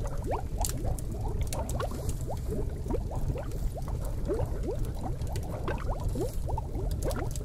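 Bubbling-cauldron sound: a busy, irregular stream of small rising bubble pops over a low steady rumble.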